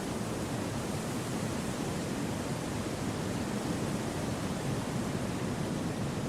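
Gentle wind through a forest: a steady, even rushing hiss with no gusts or separate sounds.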